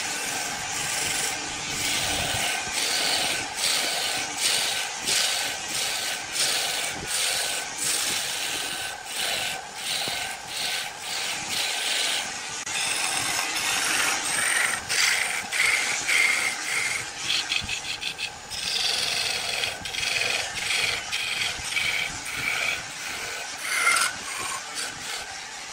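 Wood being cut on a lathe by a turning tool: a continuous scraping with many short, irregular catches.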